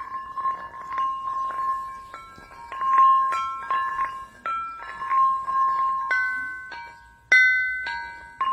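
Sonorous ringing rocks struck one after another to play a tune. Each strike rings like a bell with a clear pitch that dies away, and the notes move between several pitches, with one note near the middle of the range repeated most often.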